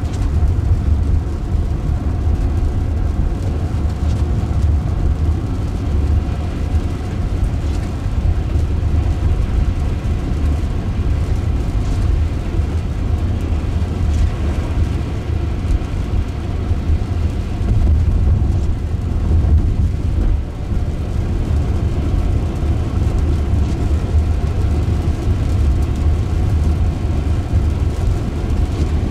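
Road noise inside the cabin of an electric Jaguar I-Pace driving at road speed on a wet road: a steady low rumble of tyres and wind, with no engine sound.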